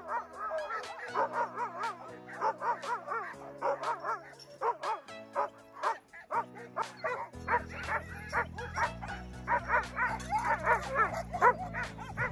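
Many harnessed sled dogs barking, yipping and whining together, excited and eager to run, with many short rising-and-falling whines and sharp barks overlapping. Background music with sustained chords plays underneath.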